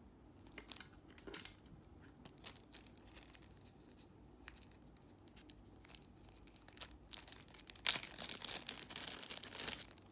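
Thin clear plastic zip bag crinkling as it is handled and opened: scattered crackles at first, then a dense, louder burst of crinkling for about the last two seconds.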